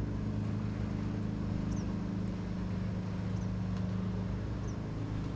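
Steady low mechanical hum, with a few faint, short high chirps over it.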